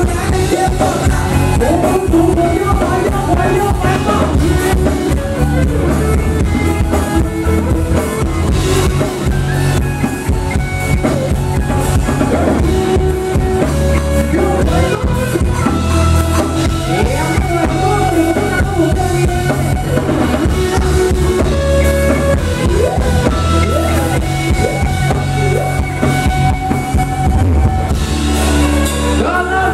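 Live band playing Thai ramwong dance music: a singer over electric guitar and a drum kit, loud and continuous.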